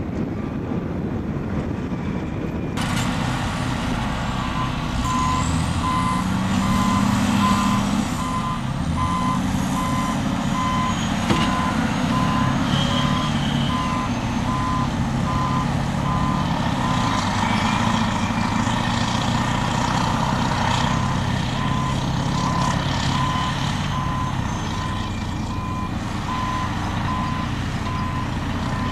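Caterpillar 631E wheel tractor-scrapers' diesel engines working under load, the engine note rising and falling. From about three seconds in, a reversing alarm beeps steadily about once a second over the engine noise.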